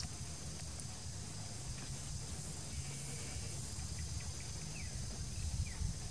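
Outdoor ambience: a steady high hiss, like insects, over a low rumble, with a few faint short chirps between about four and six seconds in.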